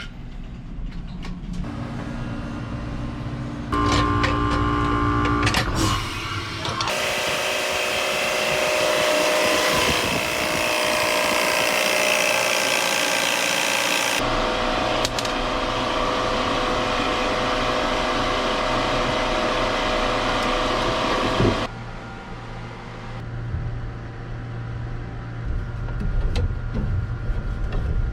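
Power tools and machinery running in a string of short clips that cut abruptly from one to the next. The loudest stretch, from about 7 to 14 seconds in, is a strong steady hiss with a hum under it.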